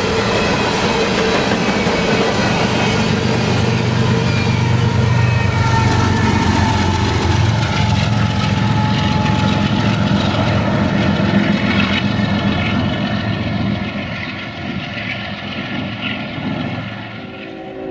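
Freight train of hopper cars rolling past close by: a steady rumble and rattle of steel wheels on the rails, dropping off in level near the end.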